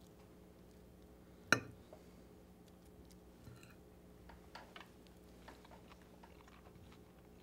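Quiet eating with a fork from a plate: one sharp clink of the fork on the plate about a second and a half in, then faint scattered small clicks of fork and mouth.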